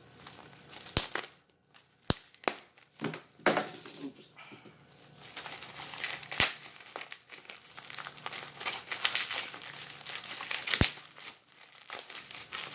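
Bubble wrap being handled and crinkled, with single sharp pops of bubbles every second or few: about five pops in all, and a stretch of steady crinkling in the middle and later part.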